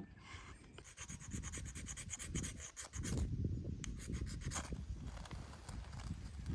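Irregular rubbing and scraping with many small scattered clicks.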